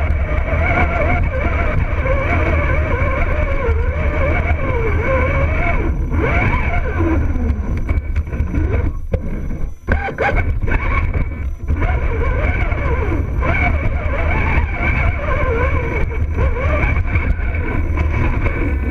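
RC rock crawler's electric motor and geared drivetrain whining, heard up close from on board, the pitch wavering up and down with the throttle over a steady low rumble. The whine drops out briefly about ten seconds in and again shortly after.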